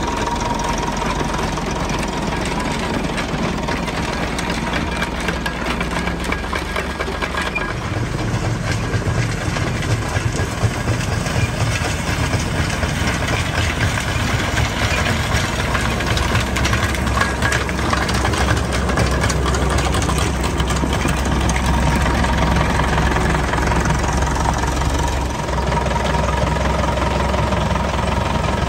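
Nuffield 4/60 tractor's four-cylinder engine running as it drives off carrying a mixer full of concrete, with a stronger, lower rumble coming in about eight seconds in.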